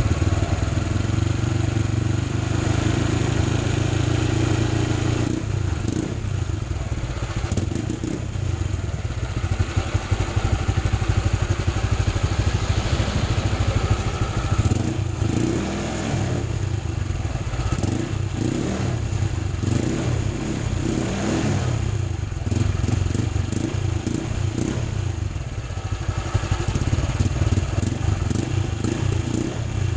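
Honda Click 150 scooter's single-cylinder four-stroke engine running through an Exos X-6 aftermarket exhaust, a continuous exhaust note heard for its sound check.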